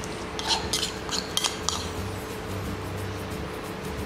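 A metal spoon clinking and scraping against a porcelain bowl while thick mayonnaise sauce is scooped out, with a quick run of light clinks in the first two seconds and softer scraping after.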